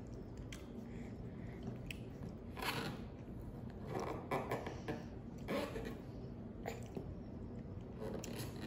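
A seven-month-old baby chewing and smacking on soft food: a handful of short, crunchy mouth and handling noises, the loudest a little past the middle.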